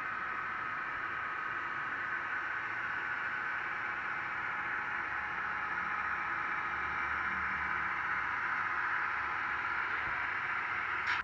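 HO scale Atlas Genset diesel locomotives running past with a steady hiss. It grows a little louder as they draw near and cuts off suddenly near the end.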